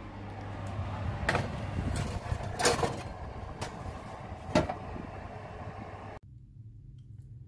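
Metal roasting tray pushed into an oven, scraping and clanking on the wire rack four times, the third clank the loudest, over a steady low hum. The sound cuts off suddenly near the end.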